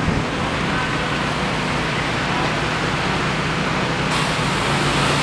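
Steady outdoor background noise, a broad even rush, with faint distant voices; a brighter hiss comes in about four seconds in.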